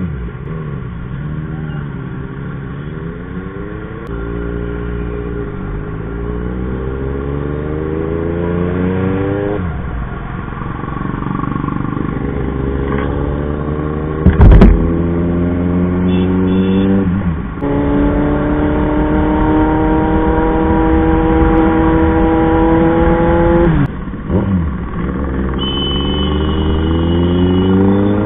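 Motorcycle engine pulling away and accelerating through the gears: its pitch rises several times, dropping back at each gear change. About halfway through comes a single sharp, loud knock.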